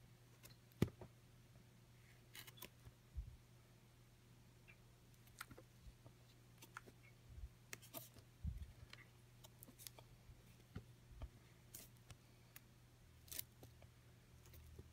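Faint rustles and taps of LP record jackets being flipped forward in a plastic crate, one sleeve after another, with a sharper click about a second in. A faint steady hum sits underneath.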